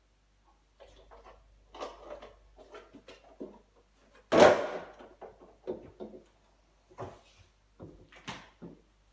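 Cardboard juice carton flipped into an open refrigerator lands on a shelf with a sharp knock about four seconds in, followed by smaller knocks. There are quieter handling knocks before it, and the fridge door is shut near the end.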